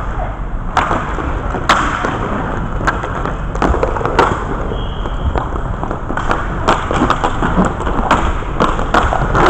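Inline hockey in play: a string of sharp knocks and clacks from sticks, puck and skates, coming thicker in the second half, over the steady rolling noise of inline skate wheels on the rink floor.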